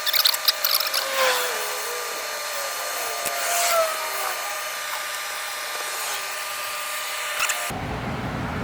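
Metal clicks and clinks, then wavering squeaks, as the parts of a Lucas starter motor are worked apart by hand; the sound cuts off suddenly near the end.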